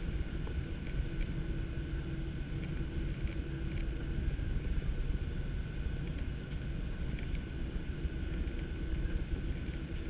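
Cabin noise of a Ryanair Boeing 737-800 taxiing after landing: a steady deep rumble with a steady high whine from the engines running through it, and a few faint ticks.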